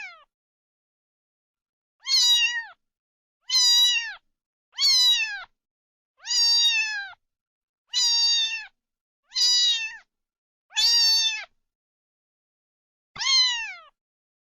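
Kitten meowing repeatedly: about eight high meows, each dropping in pitch at its end, spaced about a second and a half apart with dead silence between them.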